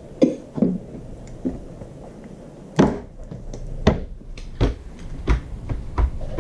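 A series of separate knocks and dull thuds of hands on a wooden tabletop, about half a dozen from about three seconds in, roughly one every 0.7 seconds.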